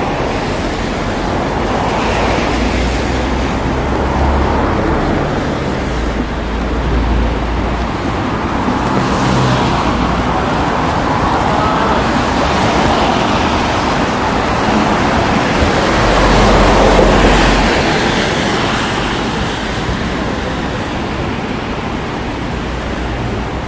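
Busy city road traffic: a steady wash of engine and tyre noise with a low rumble, swelling as vehicles pass close by, loudest about sixteen to eighteen seconds in.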